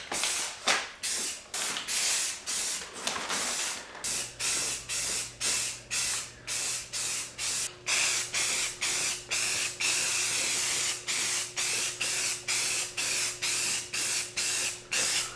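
Aerosol spray can of Rust-Oleum primer filler hissing in rapid short bursts, about two a second, with a longer steady spray around ten seconds in, as it lays a primer coat on a bare steel part.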